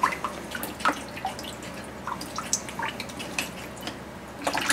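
Reject water from a 4-stage reverse osmosis filter's black drain tube trickling in a thin stream into a bucket, with irregular drips and plinks. It is the system's waste water flushing to drain while the storage tank fills and reaches pressure.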